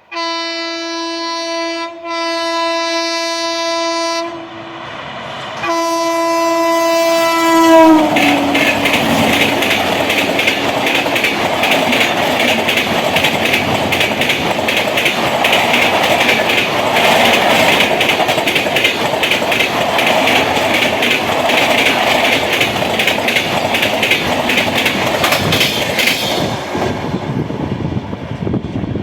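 Indian Railways train horn sounding in long blasts, the last one dropping in pitch as the locomotive passes close by. Then the passing train's wheels clatter rhythmically over the rail joints for about eighteen seconds before the sound fades away.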